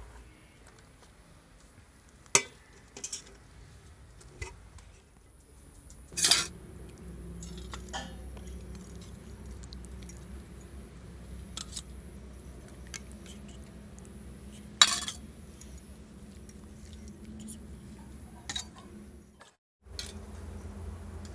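Metal serving spoons clinking and scraping against an aluminium rice pot and a steel curry pan as rice and fish curry are served out: a scattering of separate sharp clinks, the loudest about two, six and fifteen seconds in.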